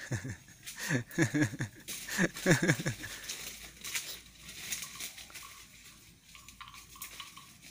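Sheep bleating: a quick run of short calls, each falling in pitch, in the first three seconds, then fainter clicking and rustling as the flock grazes.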